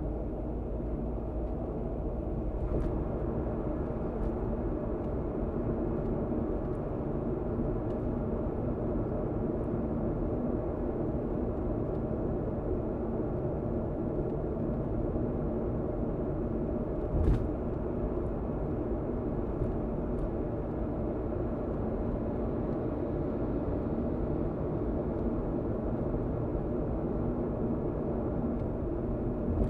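Steady rumble of a car driving at expressway speed, engine and tyre noise heard from inside the car, with one sharp thump about seventeen seconds in.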